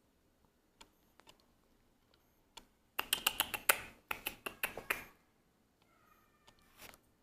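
Jindo puppies' claws clicking on a hard floor, a dense rapid run of clicks lasting about two seconds in the middle. Near the end comes a short, high whine.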